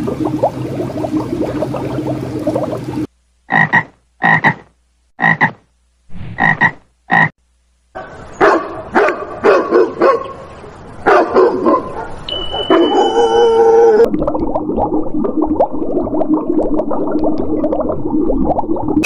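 Animal calls in a run of different clips: a steady pitched call for about three seconds, then five short separate calls with silence between them, then a faster series of sharp calls and further animal sounds.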